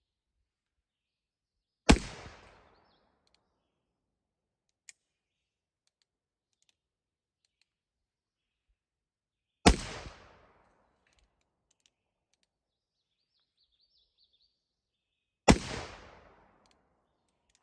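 Three shots from a Pietta Remington New Model Army black-powder cap-and-ball revolver firing conical bullets, several seconds apart. Each is a sharp report followed by a short echo that dies away within a second.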